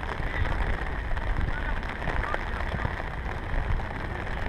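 Steady rain, with many small drops ticking close to the microphone over a low rumble.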